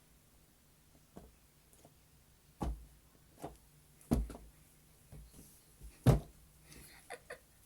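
Soft silicone pop-it fidget bubbles being pressed: a string of dull, irregular pops and thumps, the loudest about four and six seconds in, with two quick sharper clicks near the end.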